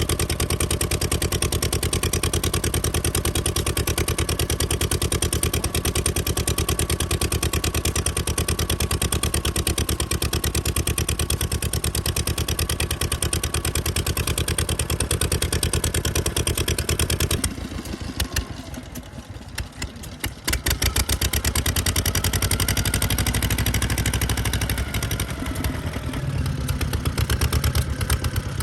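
Daikin DS-type two-cylinder kerosene engine running with a steady, even beat of firing strokes. About two-thirds of the way through it falters and sputters for a few seconds, then picks up and runs again.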